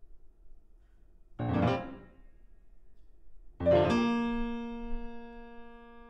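Grand piano: a short, loud struck chord about a second and a half in, then after a pause another loud chord about three and a half seconds in that is held and rings on, slowly dying away.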